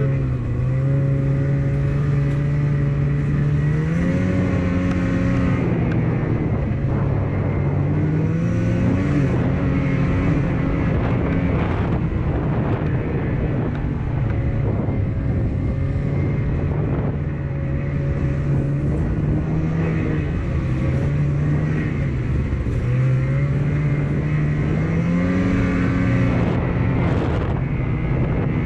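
Two-stroke snowmobile engine running under way through snow, revving up and easing off several times as the throttle changes.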